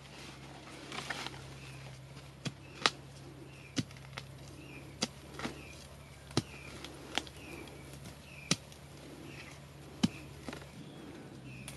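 A hand tool chopping into soil and roots, a series of sharp, irregular strikes about once a second. Faint short high chirps repeat steadily in the background.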